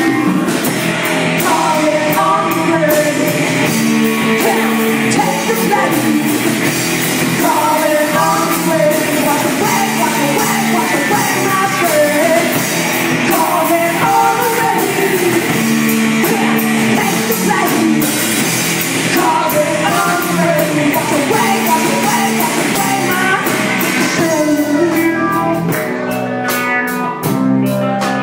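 Live rock band playing: a woman sings lead over electric bass, electric guitar and a drum kit.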